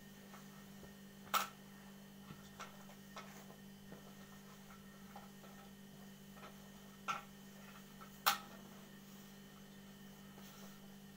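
Mawa-and-flour dough being kneaded by hand in a steel plate: faint rubbing with a few sharp clicks against the metal, the loudest about a second in and again near eight seconds in, over a steady low hum.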